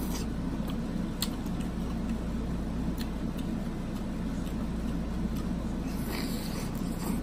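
Close-up eating sounds: scattered wet mouth clicks from chewing seafood, and a short slurp about six seconds in as sauce is sucked off the fingers. A steady low hum runs underneath throughout.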